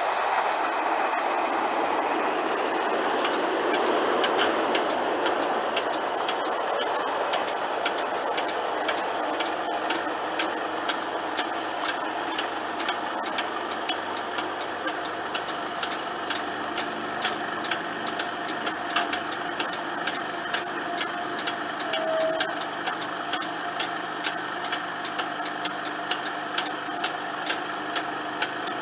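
A passing train's rumble fading away over the first few seconds, then the level crossing reopening: a steady hum with regular sharp ticks, a little under two a second, as the barrier arm rises.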